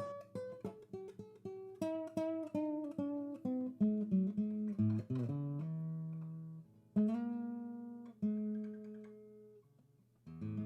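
Background music: acoustic guitar picking single notes, quick at first and then slower, held notes, with a brief pause near the end.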